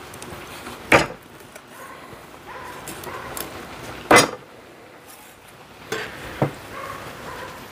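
Large kitchen knife chopping a herring into thick chunks, the blade knocking sharply on a wooden cutting board: two loud chops about a second and about four seconds in, then two lighter ones near the end.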